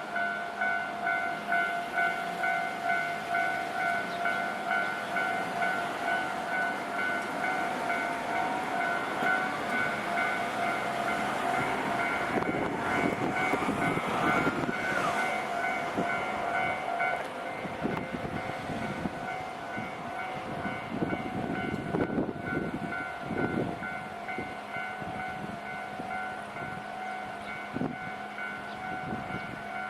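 Japanese level-crossing warning bell ringing with a steady, repeating two-tone clang while a Kishigawa Line electric train passes through the crossing. A rising motor whine comes from the train about halfway through, then its wheels knock over the rail joints as it goes by.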